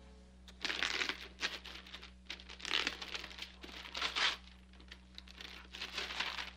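Brown wrapping paper crinkling and rustling as a parcel is unwrapped by hand, in a run of irregular bursts.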